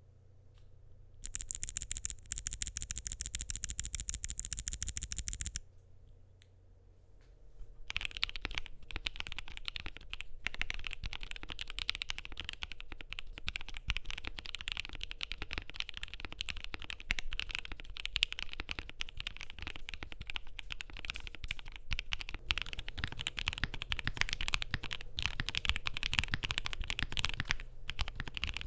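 Typing on a Keychron Q6 Max mechanical keyboard with lubed Moondrop X G-Square Lunalight switches, a polycarbonate plate and foam mods: a rapid, evenly spaced run of sharp high clicks early on, then after a short pause a steady flow of muted keystrokes from about eight seconds in.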